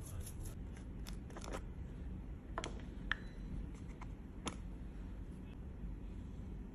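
A few light, sharp clicks and taps from handling small parts and tools at a workbench, over a low steady hum.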